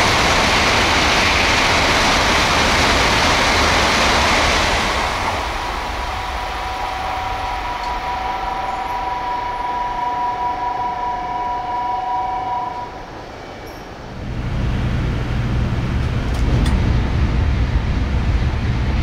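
A Tokaido Shinkansen train passing through the station at high speed: a loud rush of air and wheel noise that cuts in abruptly and holds for about five seconds, then dies away. Two steady tones follow for several seconds, and from about fourteen seconds a low rumble builds.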